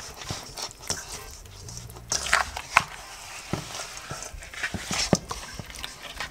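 Hands rubbing and massaging a butter-coated, seasoned raw whole chicken in a metal bowl: irregular wet squelches and slaps, with a few louder smacks around two and a half and five seconds in.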